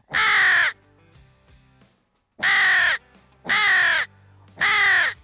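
Nasty Crow mouth call blown to imitate a hooded crow: one caw, a pause, then three caws in quick succession, each dropping in pitch at its end. The rasp comes from a vibration from the chest, like a rolling R, pushed with compressed air, with no hand cupping the call.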